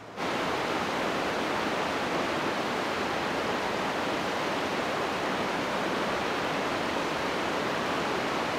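Steady rush of fast-flowing water, starting abruptly just after the start and holding an even level throughout.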